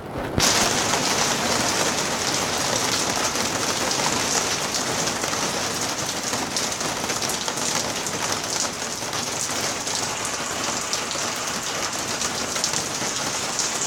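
Heavy rain mixed with hail pouring down, a dense steady hiss of drops and hailstones striking surfaces, with many fine ticks through it.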